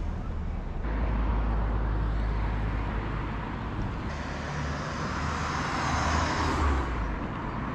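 Outdoor street ambience: steady road traffic with a low rumble, and a car passing close by about six seconds in. The background shifts abruptly twice.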